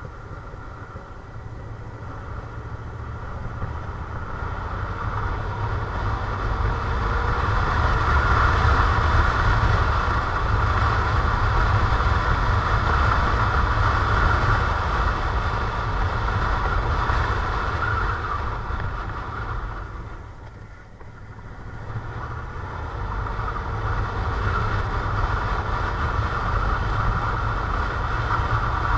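Motorcycle under way, its engine running with road noise. The sound builds over the first several seconds, drops off briefly about three-quarters of the way through, then picks up again.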